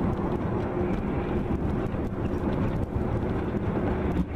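Steady low engine drone and road noise heard from inside a moving vehicle's cab, with a faint steady hum.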